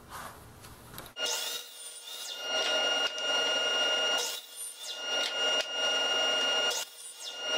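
DeWalt sliding compound miter saw running with a steady high whine and cutting a 2x4 into short pieces. The cutting noise comes in several stretches broken by short gaps.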